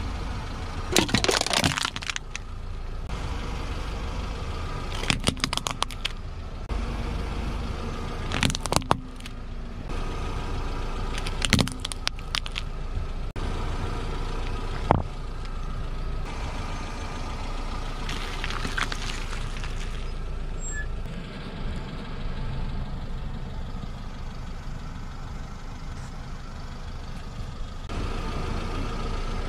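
A car's tyre rolling over and crushing small household objects on asphalt, such as a soda can and a toothpaste tube: about six short bursts of sharp cracking and crunching over the steady hum of the car's engine.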